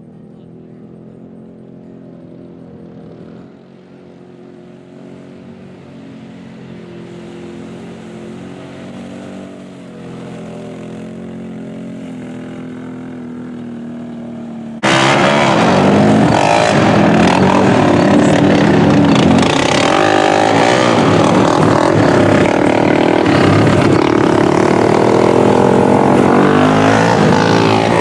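ATV engine running at moderate revs, growing gradually louder as it comes nearer. About fifteen seconds in, it switches abruptly to a much louder four-wheeler engine revving hard as it churns through a mud hole.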